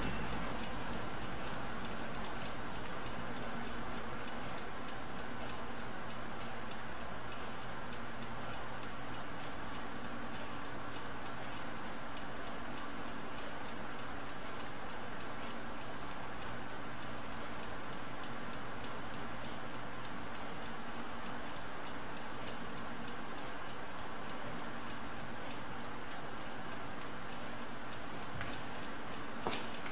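Mechanical laboratory stopclock ticking steadily as its sweep second hand runs.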